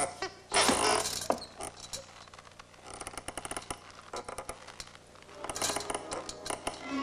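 Rattling, scraping clatter: a loud scraping burst in the first second or so, then two runs of rapid clicking, about halfway through and near the end.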